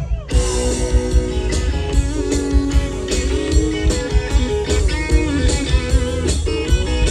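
Live rock band playing an instrumental passage led by electric guitar, over bass and a steady drum beat.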